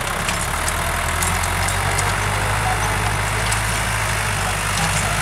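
Sonalika tractor's diesel engine running steadily while pulling a tine cultivator through the soil.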